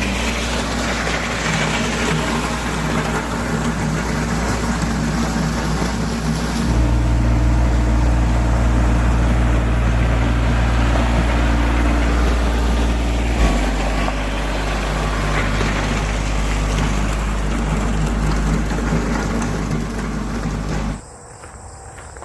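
Kubota compact tractor's diesel engine running while it works a box blade, its speed stepping up about a third of the way in and dropping back about halfway. The engine sound cuts off suddenly near the end.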